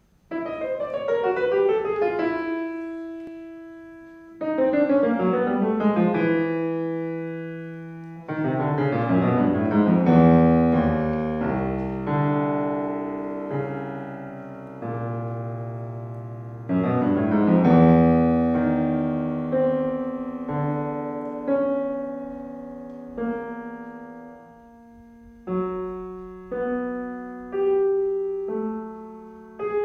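Steinway grand piano played solo: quick falling runs of notes that ring on, then fuller chords with deep bass notes, and toward the end single notes and chords struck about once a second.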